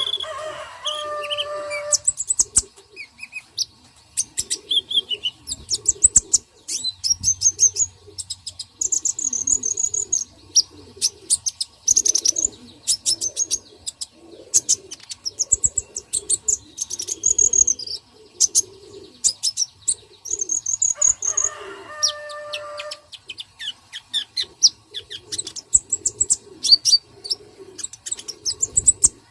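Birds chirping throughout in quick high calls, over low, repeated cooing-like calls. A louder, richer call sounds twice, at the start and again about three quarters of the way through.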